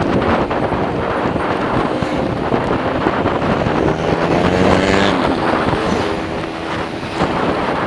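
Wind buffeting the microphone on a moving mountain bike. About halfway through, a motor vehicle's engine passes close by and its pitch slides as it goes.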